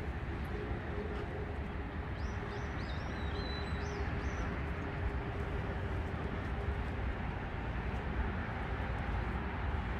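Outdoor background noise with a steady low rumble and a faint steady hum that fades out about seven seconds in. A bird chirps a few times about two to four seconds in.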